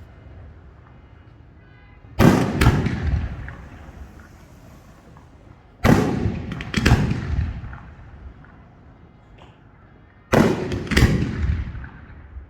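Professional category F4 display fireworks being fired: three loud bangs about four seconds apart, each followed within a second by a second bang and a rumbling tail that dies away.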